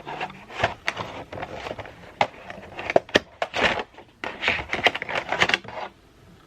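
Packaging and small parts of a video doorbell kit being handled: a quick run of rustles, crinkles and clicks that stops about a second before the end.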